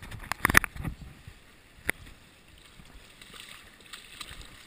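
River water splashing and sloshing against a GoPro held at the water's surface, with a burst of sharp splashes about half a second in and a single sharp tap near two seconds, then a faint wash of moving water.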